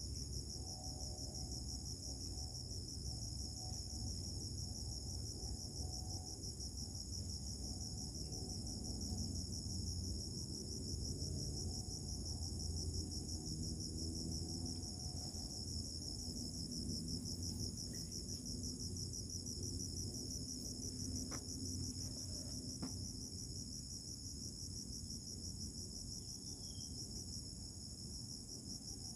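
Crickets chirping in a steady, fast, high trill, over a constant low rumble.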